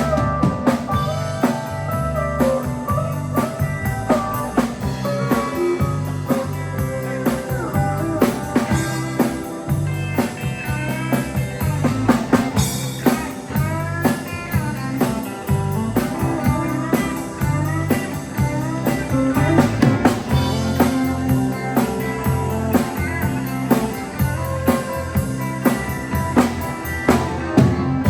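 Honky-tonk country band playing an instrumental break: a lead solo with bending notes over a steady bass-and-drums beat.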